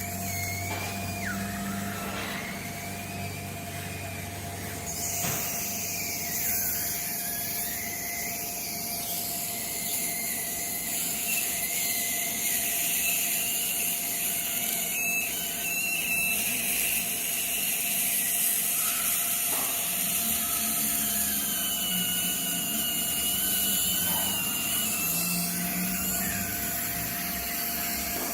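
Dental drill whining as it cuts, its pitch wavering up and down, over a steady hiss and hum.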